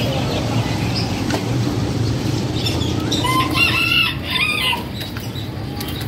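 A rooster crowing once, about halfway through, a call of a second and a half in two parts, over a steady low hum of the market and traffic.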